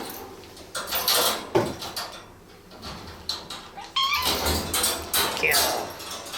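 Domestic cat giving a few short meows, one falling in pitch near the end, over bursts of rustling and handling noise.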